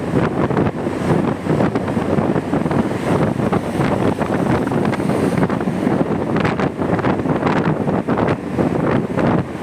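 Wind rushing over a motorcycle rider's microphone while riding, a loud steady roar broken by frequent short buffets.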